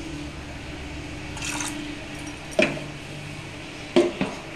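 Last drips of water falling from a bowl into an aluminium pressure cooker of mung beans, over a steady low hum. A few sharp knocks come in the second half as the steel bowl is handled and set down.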